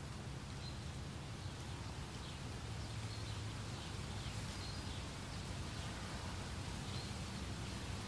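Meadow ambience: a steady hiss of wind in the grass over a low rumble, with faint, short bird chirps every second or two.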